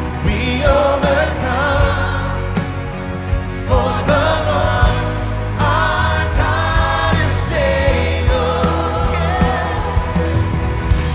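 Worship band playing a slow gospel song with singers' voices over steady bass and drum beats.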